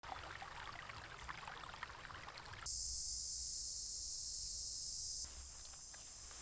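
Jungle ambience: scattered small chirps and ticks, then a loud, steady, high-pitched insect drone. The drone cuts in abruptly a little under three seconds in and stops just as suddenly about two and a half seconds later, leaving a soft even hiss.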